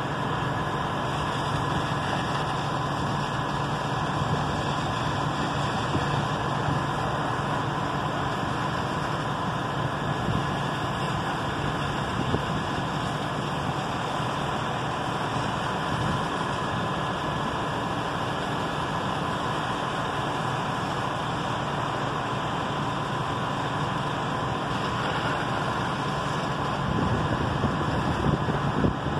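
Fire engines running steadily, their pumps feeding the hose streams: a continuous engine drone under a wash of noise.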